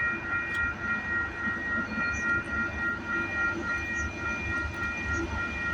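Diesel freight locomotives running, a pulsing low rumble, with steady high ringing tones held over it.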